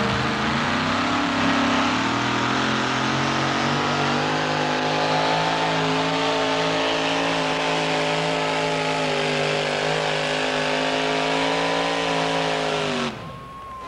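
Modified two-wheel-drive pulling truck's engine at full throttle dragging the pulling sled: revs climb over the first few seconds, hold steady at high rpm, then fall away sharply about a second before the end as the pull stops.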